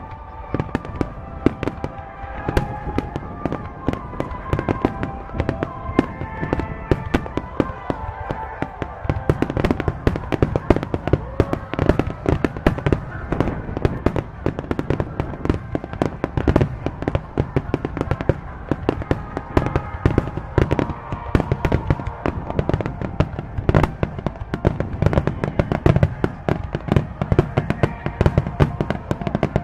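Aerial firework shells bursting in a dense, continuous barrage of bangs and crackles, the low booms getting heavier about nine seconds in, with music playing in the background.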